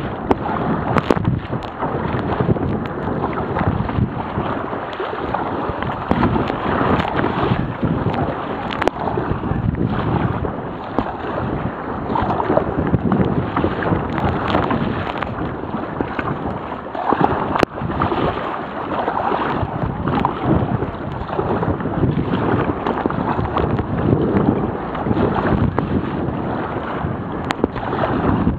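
Strong wind, 35 knots gusting to 55, buffeting a waterproof camera's microphone, mixed with waves and water splashing around a sea kayak. A few sharp knocks stand out.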